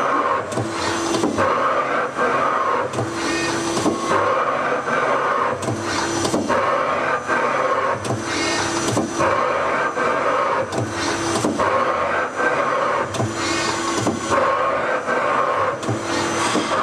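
Takisawa TC-10 CNC lathe running through its program, its 12-station tool turret indexing again and again: a short motor whine followed by clunks, repeating every two to three seconds.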